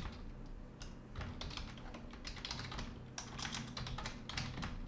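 Computer keyboard keys clicking in quick, irregular runs of keystrokes as code is typed.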